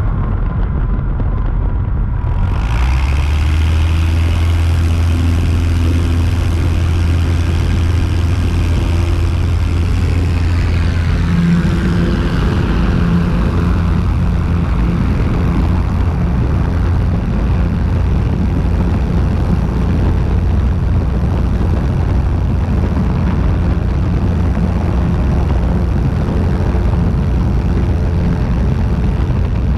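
Light aircraft's propeller engine running steadily in flight, close to the camera under the wing. About ten seconds in, the engine note changes and drops in pitch.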